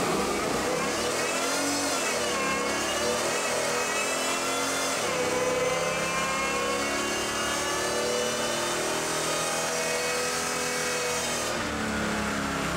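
Supercharged 454 big-block Chevy V8 with a B&M blower pulling at full throttle on a chassis dyno. The revs climb and drop back at upshifts about 2 and 5 seconds in, climb again through the top gear, then ease off near the end.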